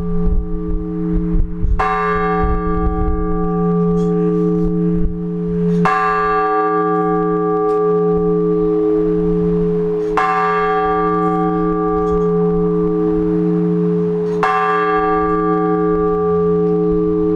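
Blagovest: one large Orthodox church bell struck slowly and evenly, four strokes about four seconds apart. Each stroke rings on with a long, deep hum into the next, calling the faithful to the start of the service.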